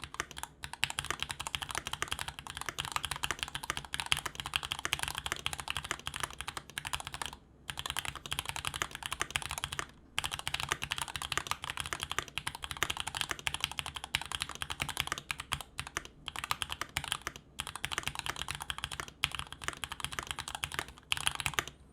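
Continuous fast typing on an E7-V1 SE mechanical keyboard with lubed Gateron Yellow Ink linear switches and GMK White on Black doubleshot ABS keycaps: a dense run of keystrokes broken by a few brief pauses, stopping just before the end.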